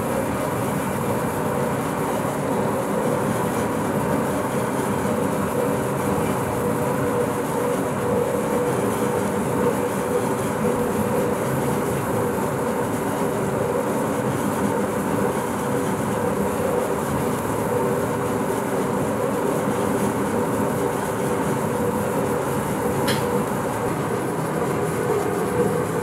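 Turntable stretch-wrap pallet wrapper running: a steady mechanical hum and rumble from the rotating turntable and the film carriage travelling up the mast, with one brief click near the end.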